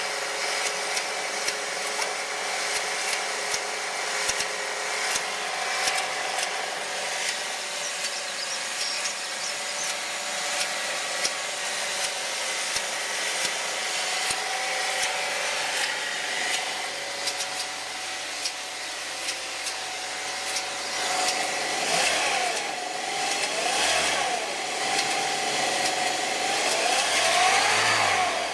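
2007 Saab 9-3 1.8T engine running cold with irregular clicking over the steady running note, then revved briefly three times near the end. This cold-only noise is the sign of a worn balance chain tensioner and a broken balance chain guide.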